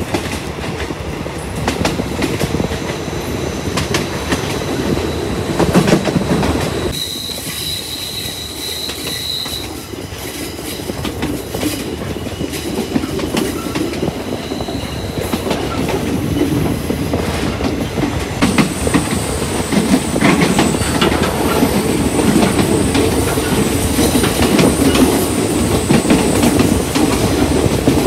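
Passenger train running along the track, heard from aboard: a steady rumble of the wheels with an irregular clatter over the rail joints. A thin high wheel squeal comes in about a quarter of the way through, and a higher one rings on from about two-thirds of the way to the end.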